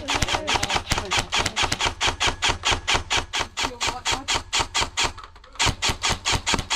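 Airsoft electric rifle firing a long stream of rapid shots, about seven a second, with a short break near the end before it fires again.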